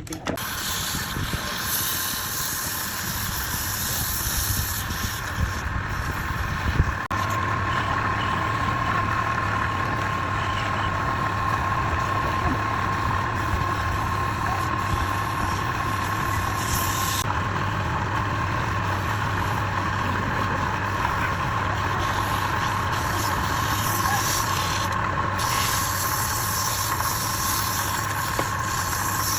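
Wood lathe starting up suddenly and then running steadily, with a low motor hum and a thin whine over the noise of the work on the spinning wood.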